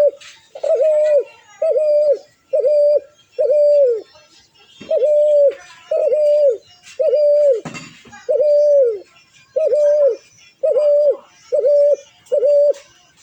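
A bird calling in a series of loud, cooing hoots of the same pitch, each about half a second long and dipping at its end, repeated about once a second, some in quick pairs.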